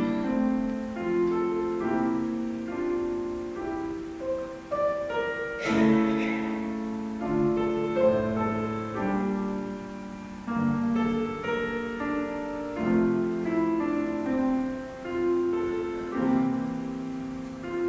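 Piano playing a slow introduction of held chords and melody, ahead of a vocal solo.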